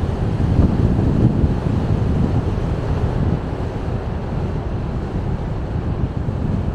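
A car driving along a road: steady low rumble of tyre and wind noise.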